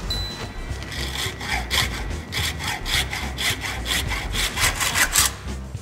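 Hacksaw cutting through a metal speed-sensor plug clamped in a vise, sawing along its O-ring groove in quick back-and-forth strokes that start about a second in and stop shortly before the end.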